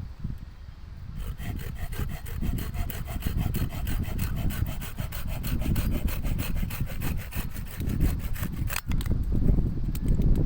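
Wood being sawn in rapid, even strokes, starting about a second in and stopping near the end with a sharp knock.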